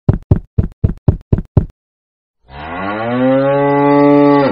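A cow mooing once: one long call of about two seconds that rises at first, then holds steady and cuts off sharply. Before it comes a quick run of about eight knocks, roughly four a second.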